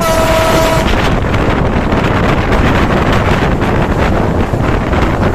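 Wind buffeting the microphone over the steady rumble of a passenger train running at speed, heard from beside a moving coach. A short steady pitched tone sounds for under a second at the start.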